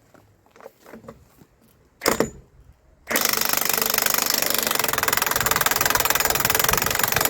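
Impact wrench hammering steadily on the lug nuts of a semi truck's steer wheel. It starts suddenly about three seconds in, after a single sharp clank.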